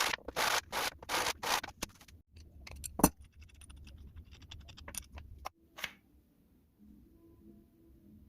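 Sandpaper rubbed by hand in quick back-and-forth strokes, about four a second, stopping after about two seconds. Then a few light clicks and taps, with one sharp knock about three seconds in.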